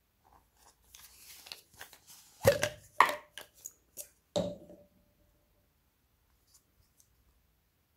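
Hard plastic objects being handled and set down: a soft rustle, then about half a dozen sharp clacks over two seconds, the last one ringing briefly. A couple of faint clicks follow.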